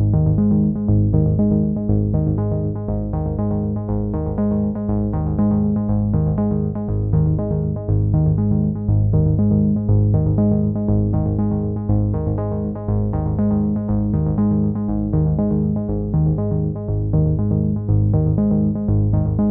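Background music with a steady repeating pulse and a strong bass line, led by synthesizer-like sustained tones.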